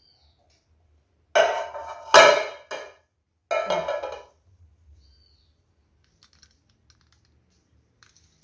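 Aluminium cake pan knocking against a granite countertop: about four ringing clanks in quick succession in the first half, followed by a few faint clicks.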